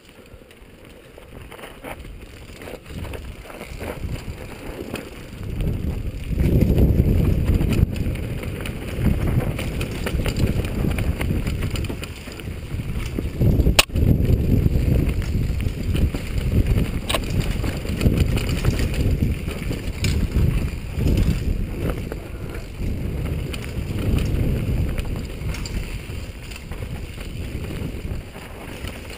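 Wind rushing over the microphone and the clatter of a downhill mountain bike descending a dirt forest trail at speed. It grows much louder about six seconds in, with a sharp knock near the middle.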